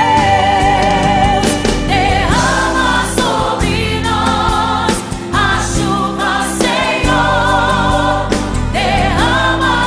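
Brazilian gospel song: sung voices held with vibrato, choir-like, over full instrumental backing with a steady beat.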